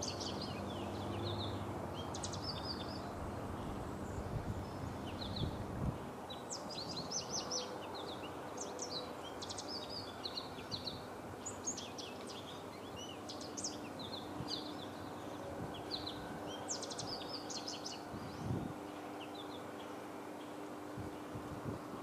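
Male American goldfinch singing: long runs of quick, high twittering notes in phrases with short breaks, over steady background noise.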